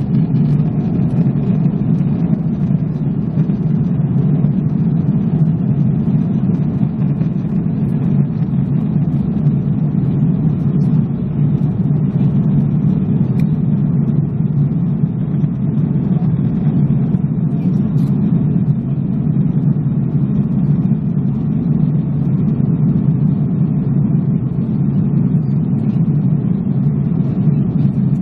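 Airbus A330-300 cabin noise in cruise: a steady, even low rumble of engines and rushing airflow heard inside the cabin.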